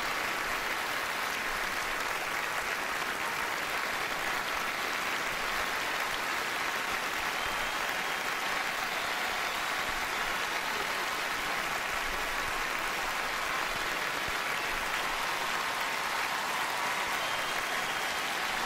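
Large theatre audience applauding steadily, a dense unbroken clapping.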